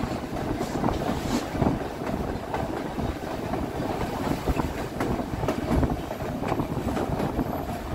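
Narrow-gauge passenger train rolling along the track: a steady rumble with irregular clicking and knocking of the wheels on the rails, heard from an open car platform.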